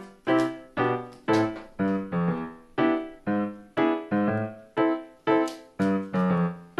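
Background music played on a keyboard: a steady run of struck notes and chords, about two a second, each dying away before the next.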